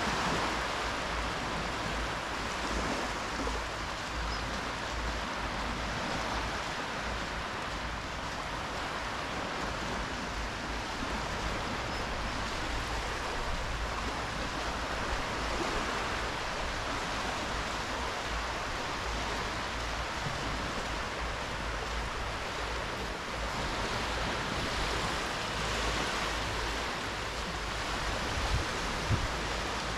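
Small waves washing onto a sandy beach in a steady, even wash of surf, with a couple of brief knocks near the end.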